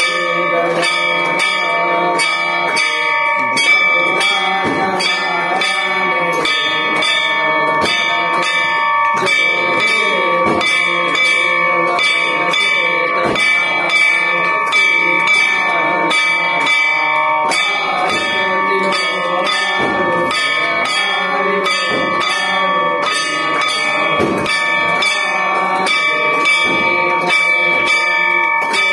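Hand-held metal gong struck over and over with a stick, about three strikes a second, ringing continuously without a break.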